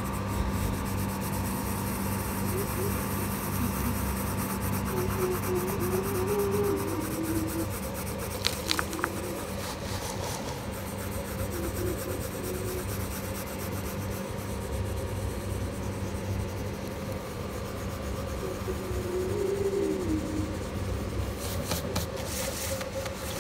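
Coloured pencil rubbing across paper in repeated shading strokes, a dry scratchy rasp.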